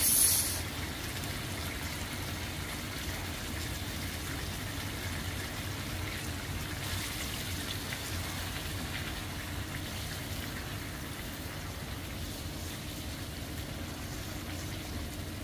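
Chicken pieces in tomato sauce and water sizzling and bubbling steadily in a frying pan over a gas flame. There is a short louder hiss right at the start.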